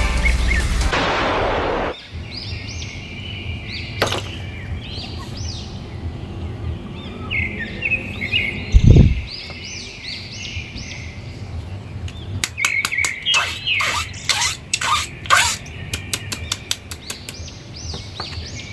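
A beam sound effect runs for the first two seconds and cuts off. Small birds chirp repeatedly in the background after that, with one loud low thump about nine seconds in. A plastic bag crackles in a hand in the last six seconds.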